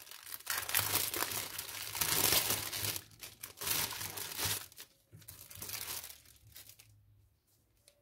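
A thin clear plastic bag crinkling and crackling in uneven bursts as hands handle it and slide a small fabric mask out of it. The crinkling dies away near the end.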